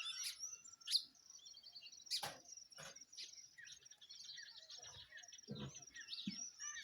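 Dawn chorus of many small birds chirping and trilling together, with a few sharp clicks.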